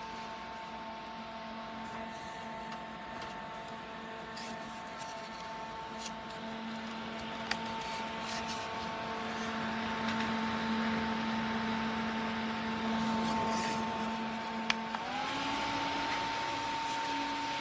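Small battery-powered Gaiatop clip-on fan running, its motor giving a steady whine and hum. About fifteen seconds in there is a click, and the whine steps up slightly in pitch as the fan goes to a faster speed.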